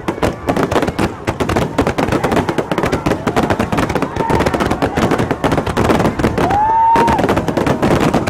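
Fireworks going off in a dense barrage of rapid crackling bangs. About six and a half seconds in, a whistle rises and then holds steady for half a second.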